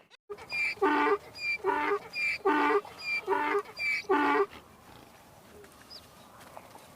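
An animal calling: about ten short calls in quick pairs over some four seconds, then it stops.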